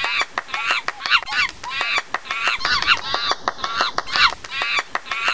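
Chimpanzee-like hooting calls repeated quickly, about three a second, each a short rise and fall in pitch, with a rapid run of sharp clicks throughout.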